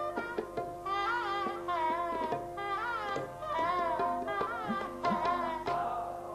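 Shehnai playing an ornamented Hindustani raga melody of gliding, wavering notes, accompanied by tabla with swooping bass-drum glides, over a steady drone. The shehnai breaks off near the end while the tabla plays on.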